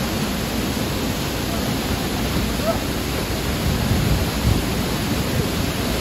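Waterfall pouring into its plunge pool: a steady, full rush of falling water.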